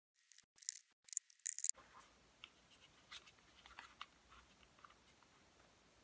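Several short scratchy rustling bursts in the first second and a half, then faint scattered clicks and taps of hands handling the scooter's plastic wheel assembly.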